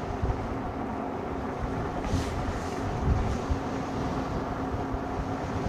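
Road and vehicle noise heard while riding, with a steady hum and wind buffeting the microphone; a brief hiss about two seconds in.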